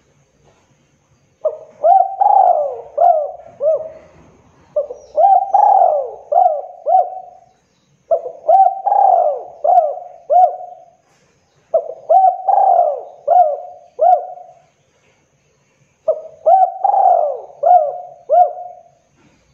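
Spotted dove cooing: five loud phrases of four or five quick, rounded coo notes each, the phrases about three to four seconds apart, the first starting about a second and a half in.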